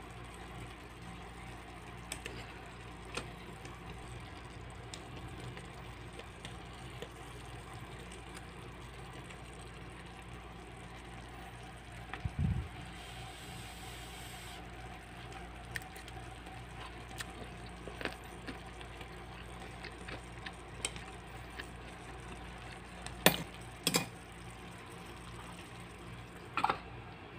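Small steel pan of sautéed squash and string beans in sauce simmering with a steady low bubbling hiss, with a few light taps. Near the end come sharp metal clinks as a steel lid is handled and set onto the pan.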